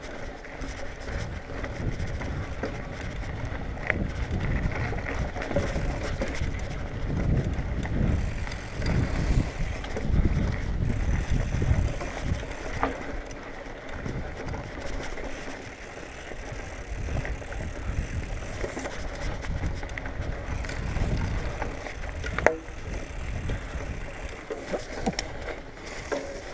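2019 Marin Bobcat Trail 5 hardtail mountain bike riding over a dirt singletrack: tyre rumble and wind on the helmet camera, swelling and fading with speed, with small rattles over bumps and one sharp knock late on.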